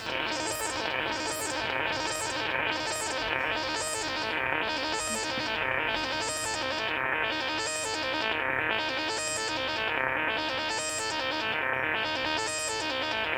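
Korg microKORG synthesizer holding a gritty, distorted sustained sound whose filter sweeps open and shut over and over, about three sweeps every two seconds, giving a rhythmic wah-like pulse. It comes in abruptly at the start.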